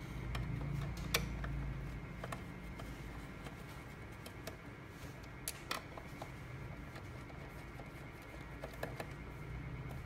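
Scattered small clicks and taps of a screwdriver and screws against the plastic inner frame of a Crazybaby speaker being taken apart, with sharper clicks about a second in, twice midway and again near the end, over a steady low hum.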